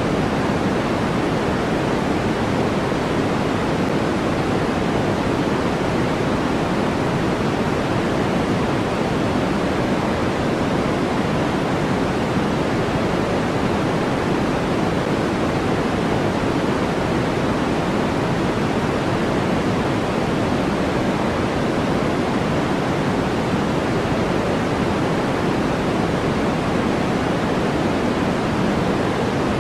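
Steady generated white noise for sleep and focus: an even, unchanging hiss, weighted toward the low and middle range and softer in the highs, more like pink noise.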